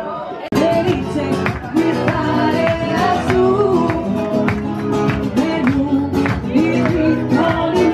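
Background music: plucked acoustic guitar with a singing voice, in a Spanish, flamenco-like style.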